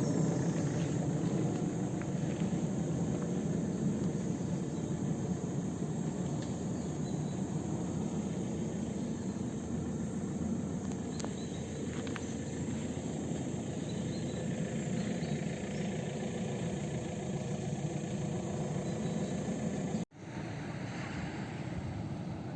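Steady low rumble of a running vehicle engine. It cuts off abruptly near the end, then resumes a little quieter.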